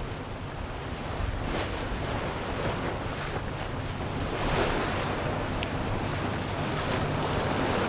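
Tour boat underway on open water: its engine hums steadily beneath wind buffeting the microphone and water rushing past the hull.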